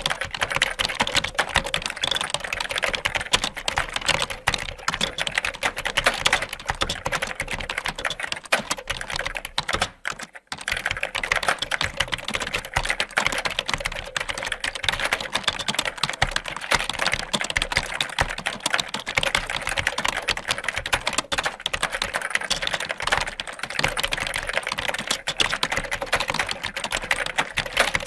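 Fast, continuous typing on a computer keyboard, a dense patter of key clicks, with a brief pause about a third of the way through.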